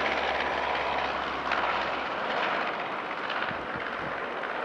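Aircraft engine noise: an even, steady rush with a faint whine in it, slowly fading.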